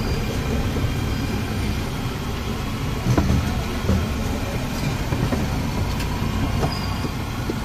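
Batter-coated vadas deep-frying in a large iron kadhai of hot oil: a steady low rumble with oil sizzling, and a few light clicks of the metal skimmer.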